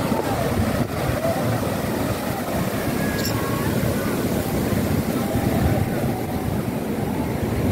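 Ocean surf breaking and foaming around a pier's pilings: a steady, dense rushing with no pauses.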